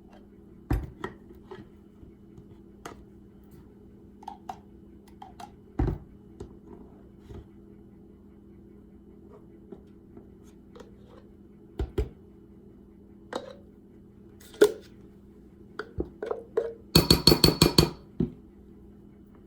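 Kitchen utensils tapping, clinking and scraping against dishes as light mayonnaise is measured out for a salad dressing, with a quick run of about ten sharp clicks near the end. A faint steady hum lies underneath.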